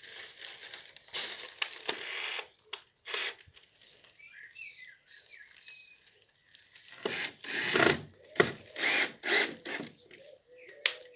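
Power screwdriver driving screws in several short bursts, a few seconds apart. Small birds chirp between the bursts.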